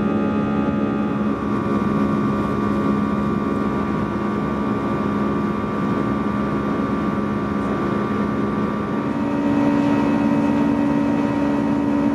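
Airbus A320 cabin noise during the climb: a steady jet engine drone and airflow rush with humming tones, whose pitch changes around nine seconds in.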